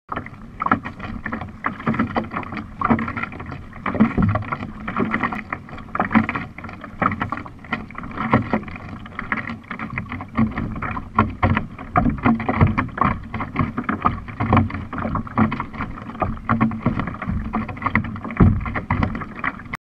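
Water splashing and slapping against the hull of a one-person outrigger canoe being paddled, in irregular surges.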